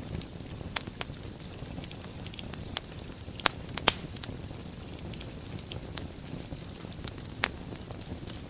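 Wood fire burning in a fireplace: a steady low rumble of flames with scattered sharp crackles and pops, a cluster of the loudest pops about three and a half to four seconds in and another near the end.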